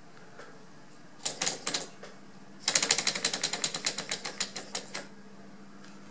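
3D-printed Stirling engine's pistons and crank clicking in their glass-syringe cylinders as the flywheel turns. A few clicks come first, then a fast run of clicks that slows and fades over about two seconds as the flywheel coasts to a stop.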